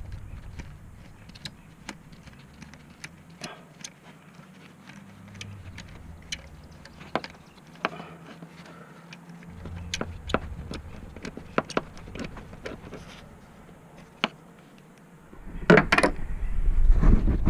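Scattered metallic clicks and clinks of hand tools working the thermostat housing bolts in an engine bay, over a low rumble of handling noise close to the camera. Near the end, a louder burst of knocking and rubbing as the camera is jostled.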